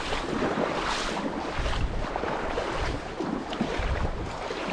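Steady rush of river water, with wind gusting against the microphone in low rumbles that swell and fade twice.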